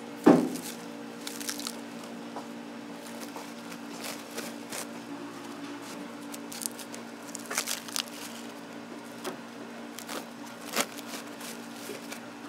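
Kitchen food-preparation sounds over a steady hum of kitchen equipment. A sharp knock comes just after the start, followed by scattered soft taps, clicks and squishing rustles.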